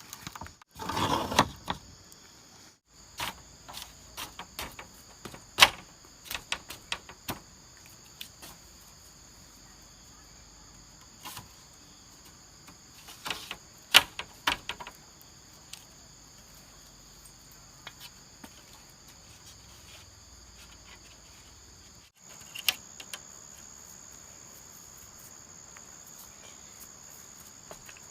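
Insects, crickets or cicadas, keep up a steady high-pitched drone. Scattered sharp knocks and clicks come and go over it, the loudest about a second in, around five to six seconds in and around fourteen seconds in.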